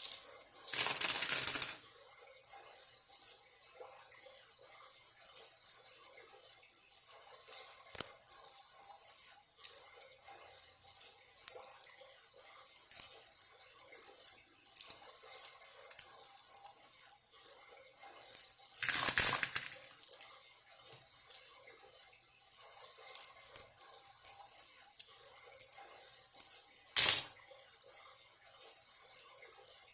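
Loose coins clicking and clinking as change is sorted by hand, in small taps every fraction of a second. Twice there is a louder rattle lasting a second or so, near the start and about two-thirds of the way through.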